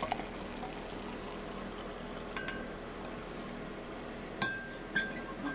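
A few light metallic clinks of a stainless steel cooking pot and steel travel mug being handled. The loudest comes about four and a half seconds in and rings on for about a second. A faint steady hum lies underneath.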